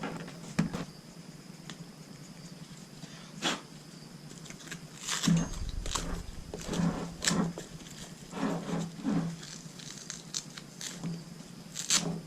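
Handling noise from a climbing saddle's nylon leg-strap webbing and metal buckle: irregular clicks, taps and rustles as the strap is worked through the buckle, busiest in the middle of the stretch.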